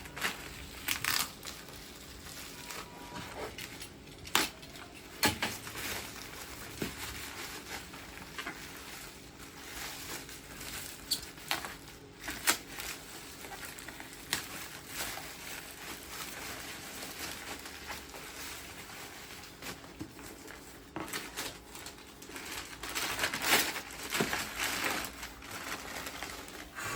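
Unboxing noises from a camera lens's packaging: wrapping and cardboard crinkling and rustling, with scattered sharp clicks and knocks as the box and its contents are handled, busiest near the end.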